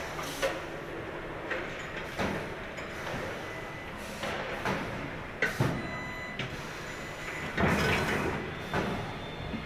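Aircraft assembly-shop noise: a steady hum with irregular knocks and clanks of metal parts being handled, loudest in a cluster near the end.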